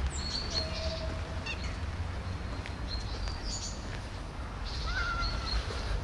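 Small birds chirping now and then, over a steady low outdoor rumble.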